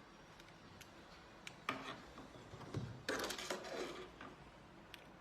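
Light handling noises: a few small clicks, a soft knock, and a brief rubbing rustle about three seconds in, as heated insoles and their charging cable are handled.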